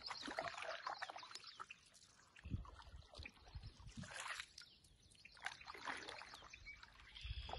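Canoe paddling, heard faintly: water trickling and splashing off the paddle, with a low knock about two and a half seconds in and another near the end.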